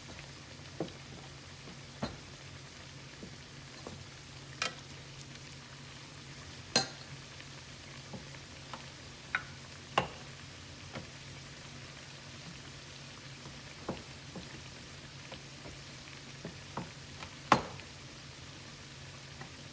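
Dough bakes frying in hot vegetable oil: a steady sizzle broken by scattered sharp pops, a few of them much louder than the rest.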